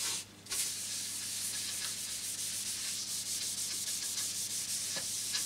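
Paper towel rubbed over a wooden Spätzle board, working walnut oil into the wood as a finish: a steady dry rubbing hiss, with a brief break just after the start.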